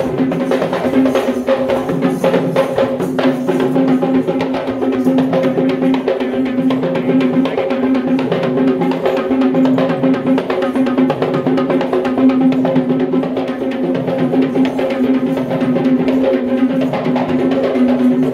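Live traditional Sri Lankan Kandyan drumming, a fast, unbroken beat, with a steady held pipe note droning over it.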